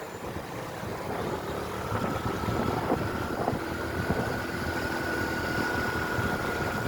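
Riding on a motorcycle: the engine running steadily under rushing wind on the phone's microphone, with a thin steady whine coming in about two seconds in.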